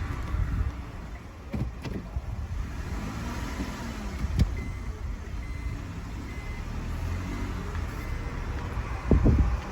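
Low running rumble of a Honda kei car with a CVT moving slowly, with a short electronic beep repeating from about halfway, like a reverse-gear warning. A few knocks, and louder thumps near the end.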